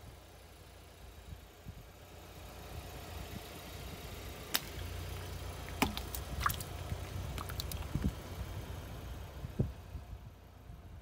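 Car engine running low as a tyre rolls slowly over filled rubber gloves, with a string of sharp pops and cracks as the gloves burst under the tyre, from about four and a half seconds to near the end.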